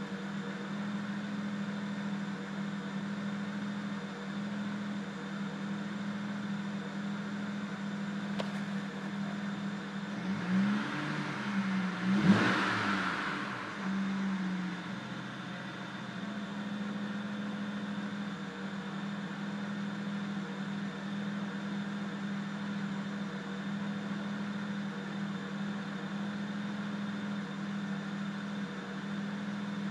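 BMW 335i's turbocharged 3.0-litre straight-six idling roughly, a steady drone, with a brief rise and fall in engine pitch from about eleven to fourteen seconds in. The idle hunts between about 800 and as low as 650 rpm.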